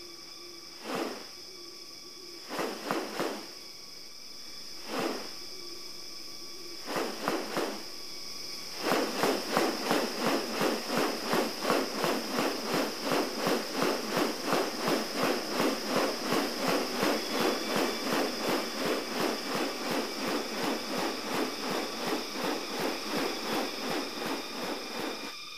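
Rainforest ambience: a steady high insect drone. Over it come a few separate rasping bursts, then from about nine seconds in a fast, regular run of rasping pulses, about two and a half a second.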